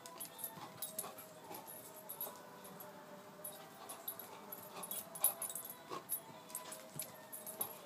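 A Staffordshire bull terrier whining in a thin, drawn-out way while playing with a toy, with several short clicks scattered through it.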